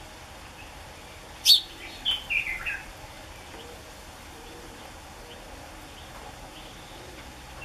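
House sparrow chirping: one loud, sharp chirp about a second and a half in, then a quick run of four or five chirps that fall in pitch. After that there is only a low steady background hiss.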